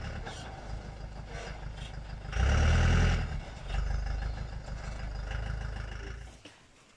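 Iveco box truck's diesel engine running as it is manoeuvred, with a louder surge of engine noise about two and a half seconds in; the sound fades out near the end.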